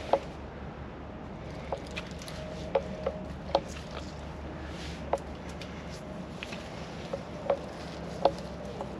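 Footsteps picking through dry sticks, roots and mud on a mangrove floor, with sharp twig snaps and cracks every second or so over a steady low hum.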